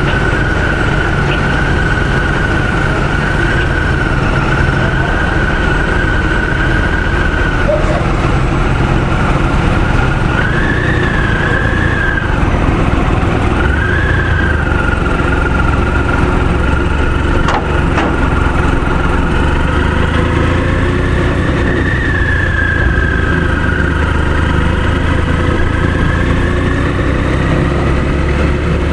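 Motorcycle engine running steadily with a loud low rumble, idling and then pulling away at low speed. A high whine holds steady at first and wavers up and down once it is moving.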